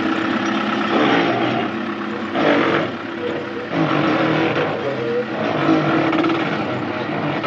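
Case 580 Super R backhoe loader running, its diesel engine and machinery loud and steady, with swells in level about two and a half and four seconds in.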